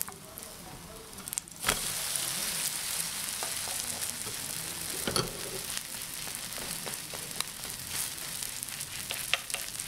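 Vegetable pancake sizzling in oil in a nonstick frying pan. About one and a half seconds in, a sudden thump comes as it is flipped, and the sizzle turns louder and stays so as the raw side meets the hot pan. Wooden spatulas tap and scrape against the pan a few times.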